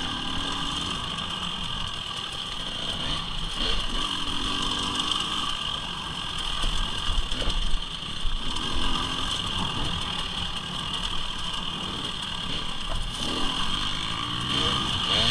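Motorcycle engine running steadily, with an uneven low rumble and a constant high whine.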